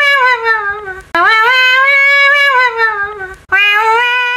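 Loud, drawn-out wailing cries, the banana cat meme's crying sound: three long high wails, each rising at the start and sliding down in pitch at the end.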